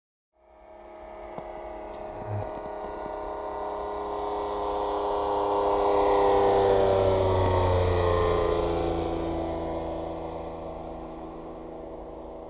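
A light propeller aircraft flying low past. Its engine drone swells to a peak about six seconds in, then drops in pitch and fades as it moves away.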